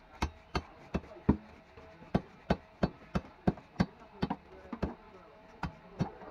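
Rapid chopping knocks, about three a second in short runs with a brief pause twice, as tilapia are cut against an upright boti blade over a wooden board.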